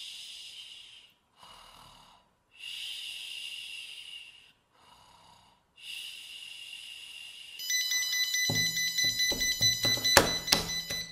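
Drawn-out snoring breaths, loud and soft in turn, until about seven and a half seconds in, when the alarm clock's piezo buzzer starts a steady high-pitched tone. From about eight and a half seconds a hand knocks and slaps at the keypad and table under the buzzing, loudest about ten seconds in.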